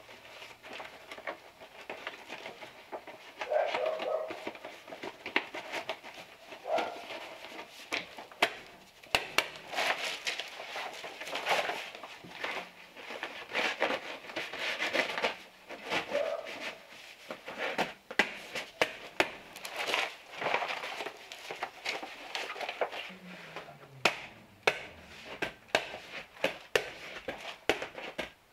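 Stiff 60-minute black building paper crinkling and rustling as strips are pushed in behind the broken edge of the stucco, with many irregular crackles.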